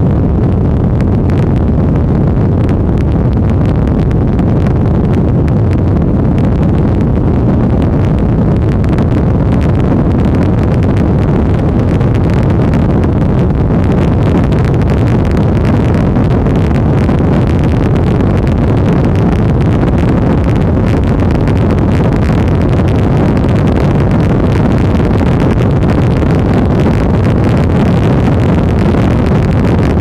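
Severe thunderstorm straight-line winds, gusting around 50 mph, blasting across the microphone: a loud, steady rushing roar, heaviest in the low end.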